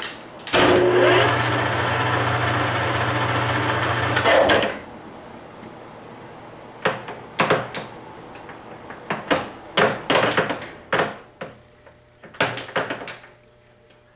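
Webb WL435 17x40 gap lathe's spindle and headstock gearing running steadily for about four seconds, then stopping. A series of separate clunks and clicks follows as the headstock speed-change levers are shifted.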